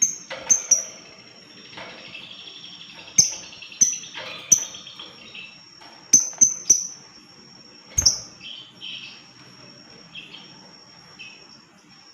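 Lovebird calling: a run of sharp, shrill chirps coming at irregular intervals, about a dozen in all, with a busier chattering trill between them. A faint, steady, high-pitched tone runs underneath.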